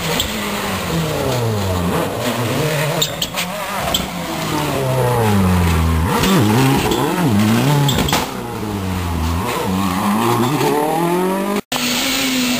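Rally car engine working through a hairpin, its revs falling and rising again and again as the driver brakes, changes gear and accelerates away. Near the end the sound cuts off abruptly and another rally car's engine is heard at a steadier pitch.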